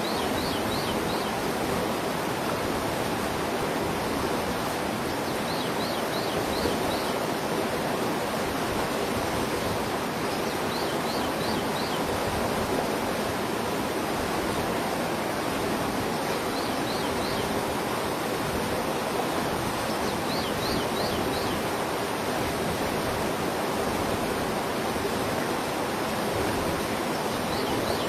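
Steady rush of flowing river water. Over it, a bird repeats a short high phrase of four or five quick notes every five or six seconds.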